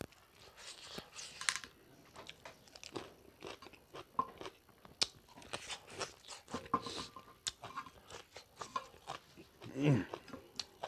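A person chewing and biting pork leg curry close to the microphone: irregular crunches, wet clicks and smacks.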